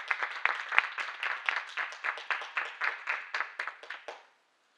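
Audience applause, a dense patter of hand claps that thins out and stops about four seconds in.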